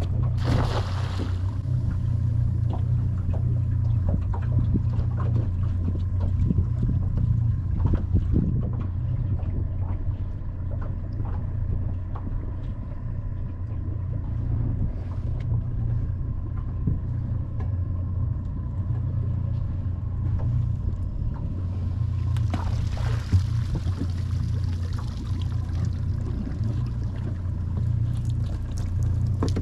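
A cast net lands on the water with a splash about a second in. Later, from around three-quarters of the way through, there is a longer rush of water as the net is hauled up and out streaming, all over a steady low rumble.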